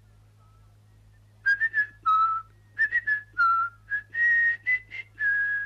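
Someone whistling a short tune: about a dozen clear notes stepping up and down, some held for about half a second, starting about a second and a half in.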